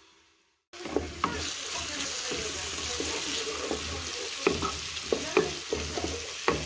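Chopped onions sizzling in oil in a pot, starting a moment in as a steady hiss. A wooden spoon stirs them and knocks against the pot several times.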